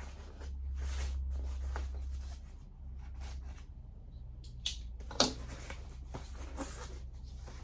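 Cardboard box and packing being opened and handled: a string of rustles and scrapes, with two sharp knocks about five seconds in.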